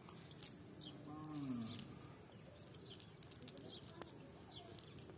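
Birds chirping: many short, high calls scattered throughout, with one short, low call gliding downward about a second in.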